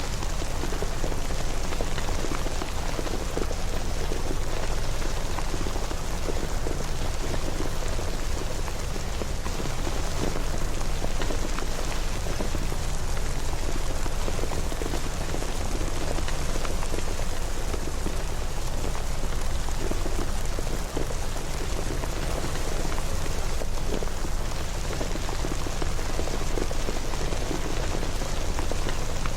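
Steady rain, with a constant hiss of falling rain and many small drops spattering.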